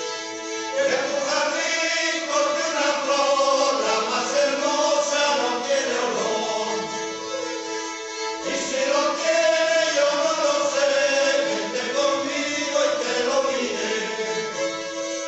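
A group of men singing together to the accompaniment of several rabeles, folk fiddles played with a bow, whose strings keep up a steady drone under the voices. The voices come in about a second in, break off briefly a little past the middle, and then resume.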